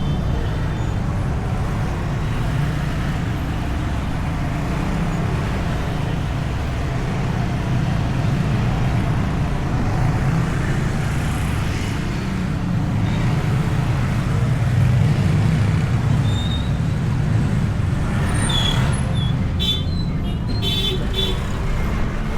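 Motorcycle riding through traffic, heard from a microphone inside the rider's helmet: a steady low rumble of engine, wind and road that changes little. Near the end come a few short, high-pitched sounds.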